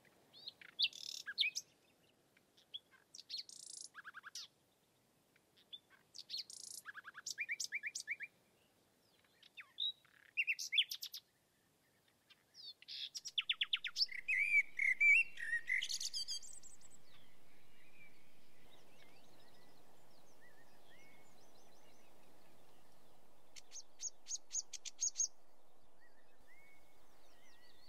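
Songbirds singing in short separate phrases of chirps and rapid trills, with a faint steady background noise setting in about halfway through.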